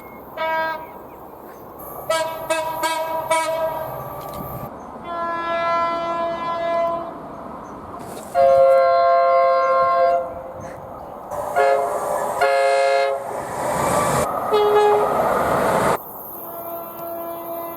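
Train horns sounding one clip after another with abrupt cuts between them: short blasts and longer held chords of two or more tones, a different horn in each clip. Some blasts sit over the noise of a moving train.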